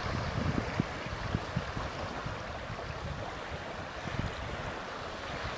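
Small wind-driven waves lapping and washing onto a sandy lake shore, with wind rumbling on the microphone, strongest in the first second or so.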